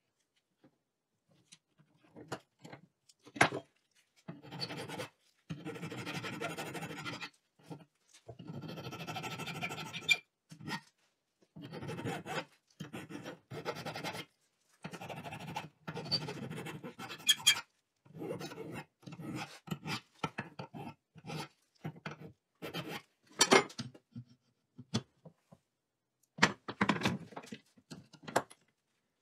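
Hand file stroking back and forth across a small aluminum part clamped in a bench vise: a run of rasping strokes, each a second or two long with short pauses between. A few sharp knocks fall in between the strokes.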